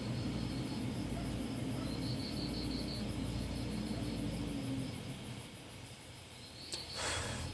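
Faint insect chirping in a pulsing high band, over a low steady hum that fades out about two-thirds of the way through; a click and a brief hiss come near the end.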